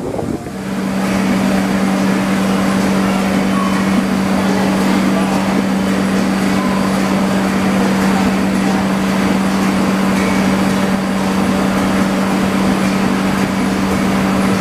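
A steady engine hum that holds one unchanging pitch, with a fainter higher tone above it. It starts about half a second in, over a background of general outdoor noise.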